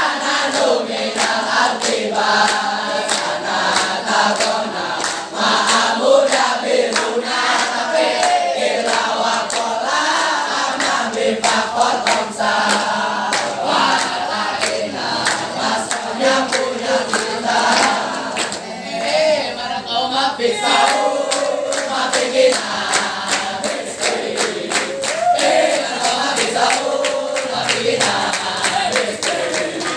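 A large group of boys singing and chanting a yel-yel cheer together in unison, with hand claps throughout.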